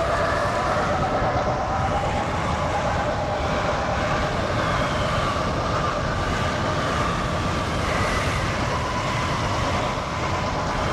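Tornado wind sound effect: a steady, dense roaring rumble with faint whistling tones that waver slowly up and down above it.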